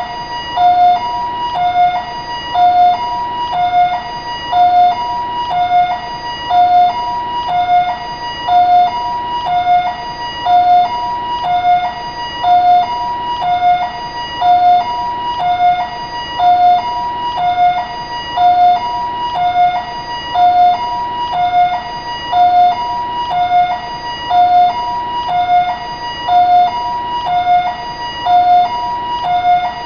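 Taiwanese ambulance siren in its two-tone high-low pattern, switching evenly between a lower and a higher note about once a second each pair, repeating steadily.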